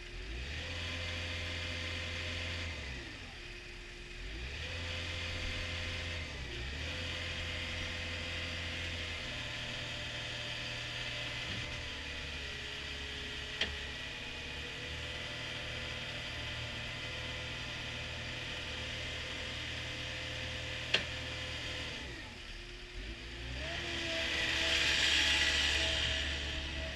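Caterpillar 236D skid steer loader's diesel engine revving up and dropping back toward idle several times, then held at high revs for a long stretch. Two sharp clicks are heard partway through, and a loud hiss swells and fades near the end as the engine revs again.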